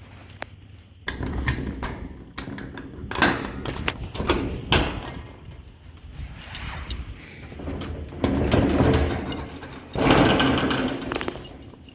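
Irregular knocks, thuds and rustling of household objects being handled, with a few louder stretches.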